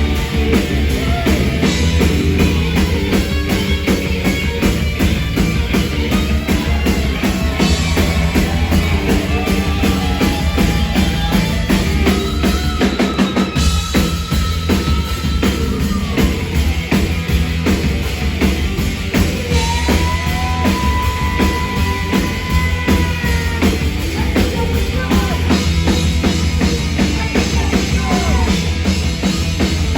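Live rock band playing loudly, with a driving drum kit and bass under distorted guitars; a lead line holds and bends notes twice, about halfway through and again later.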